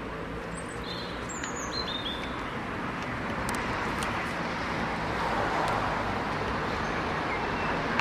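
Steady outdoor background noise that swells slightly in the middle, with a few short, high bird chirps in the first two seconds.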